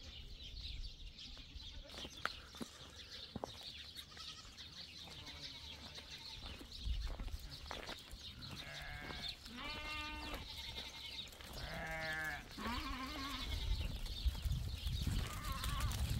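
Goats bleating: several quavering calls a couple of seconds apart, the loudest about ten and twelve seconds in.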